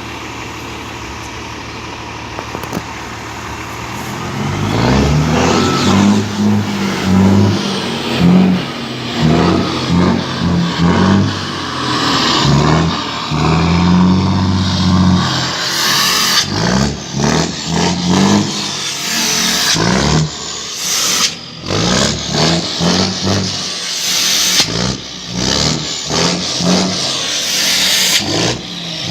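Volkswagen 25-320 truck's diesel engine through a straight-pipe exhaust, idling, then from about four seconds in revved in repeated surges that rise and fall. The engine brake is used so the exhaust rumbles as the revs come down, with choppy breaks in the sound through the second half.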